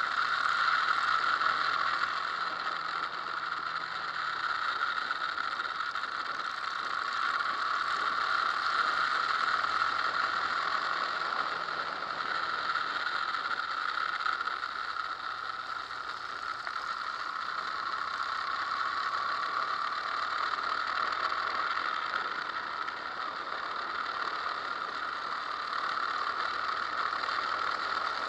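Motorcycle on the move: a steady rush of wind and road noise on the microphone, with the engine's hum faint underneath, swelling and easing a little with speed.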